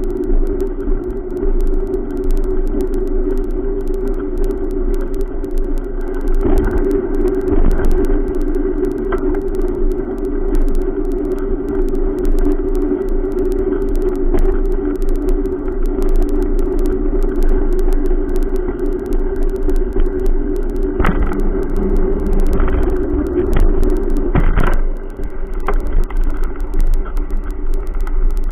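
Continuous riding noise from a bicycle with the camera mounted on it, rolling along a concrete sidewalk: a loud steady hum with constant fine rattling, and a few heavier knocks as the bike goes over bumps, a pair early on and several more near the end.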